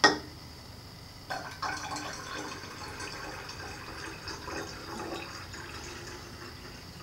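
Water poured from a glass laboratory flask into a glass flask of diesel, trickling and splashing unevenly from about a second in until near the end. A sharp knock sounds right at the start as the flask is tipped.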